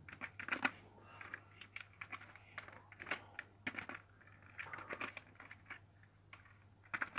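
Faint computer keyboard typing: irregular key clicks in short runs as an email address is entered, over a faint steady low hum.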